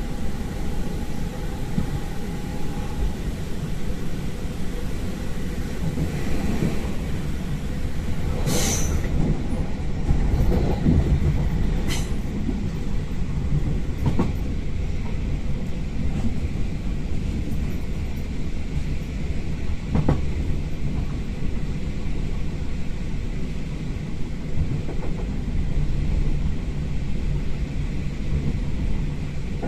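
Class 460 electric multiple unit running at speed, heard through an open window: a steady rumble of wheels on rail with rushing air, and a handful of sharp clacks as the wheels pass over rail joints or points, the loudest about nine seconds in. A faint steady whine stops after about three seconds.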